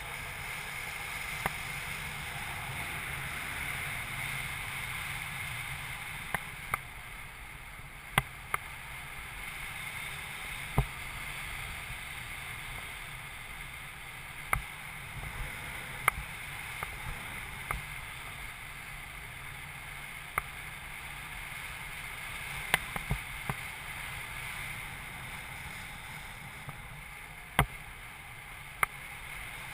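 Wind rushing over the camera microphone of a paraglider in flight, a steady rush with a dozen or so sharp clicks scattered through it.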